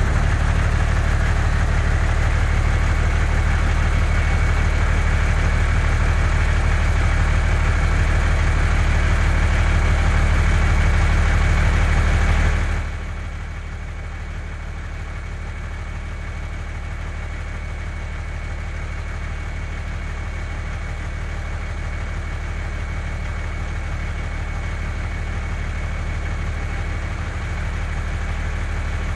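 Heavy vehicle engine idling with a steady low rumble. It drops in level about 13 seconds in and then runs on steadily.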